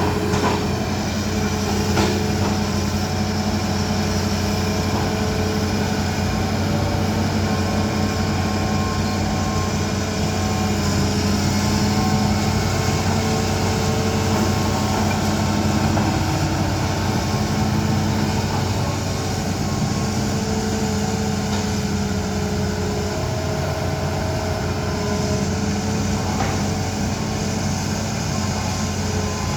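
Excavator's diesel engine running steadily at a constant pitch, with a couple of short sharp knocks.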